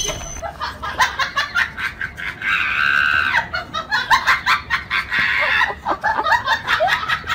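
A person laughing with high-pitched squeals, over rapid scratching and knocks from a cat's claws scrabbling on wooden wardrobe doors.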